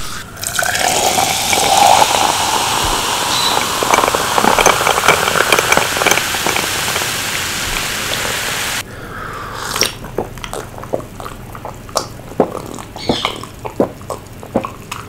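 Diet Coke being poured into a glass: a steady fizzing pour whose pitch rises as the glass fills. It stops abruptly about nine seconds in, and quieter scattered clicks and crackle follow.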